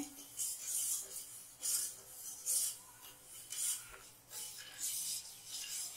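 Steel spoon stirring undissolved sugar granules in water in a stainless steel pot, scraping the bottom with a gritty rasp on each stroke, about once a second. The sugar is still granular, not yet melted into syrup.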